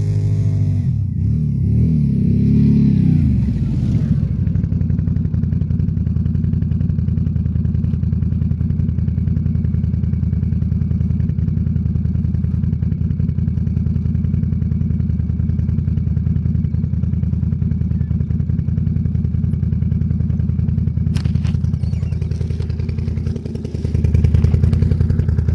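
Can-Am Renegade 800 XXC ATV's V-twin engine close by, revving up and back down in the first few seconds, then idling steadily. It drops briefly near the end and comes back slightly louder.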